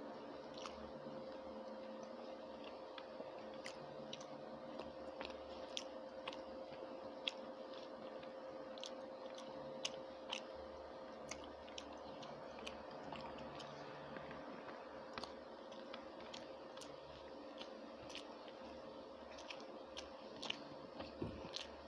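Close mouth sounds of a person chewing rice and curry eaten by hand: many small, irregular wet clicks and smacks, faint, over a low steady hum.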